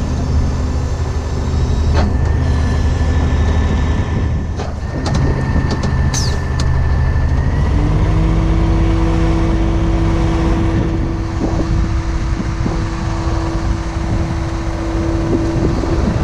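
Heavy wrecker's diesel engine running steadily while its winch hydraulics are worked. About halfway through, the engine note steps up and a steady whine sets in.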